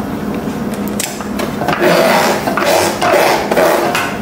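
Small plastic toy pieces being handled, rattling and rubbing against each other in several short bursts.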